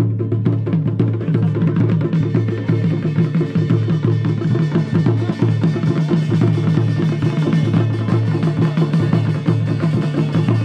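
Traditional Garhwali ceremonial drums played in a fast, steady rhythm over a steady low drone.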